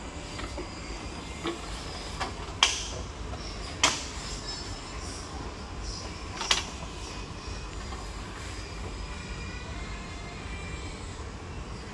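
Steady low background hum with a few sharp knocks or clacks, the loudest three about two and a half, four and six and a half seconds in.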